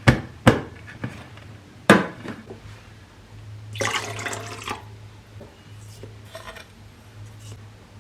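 Three sharp knocks of hard objects, then a brief rush of water about four seconds in, over a steady low hum.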